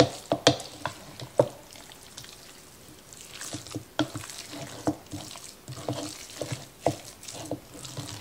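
Wooden spoon stirring raw ground beef with milk and eggs in a mixing bowl: wet squelching with irregular knocks of the spoon against the bowl.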